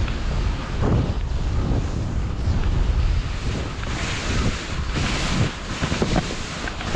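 Wind rumbling on the microphone of a skier moving downhill, with skis hissing and scraping over the snow. The hiss is loudest for a stretch around the middle.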